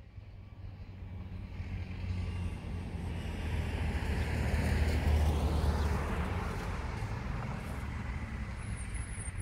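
A heavy vehicle engine running with a deep, steady hum. It grows louder over the first five seconds or so, then holds at a steady level.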